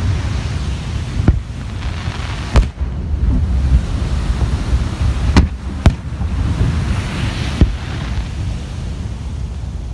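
Aerial firework shells bursting: five sharp bangs, two of them close together about halfway through, over a steady low rumble of wind on the microphone.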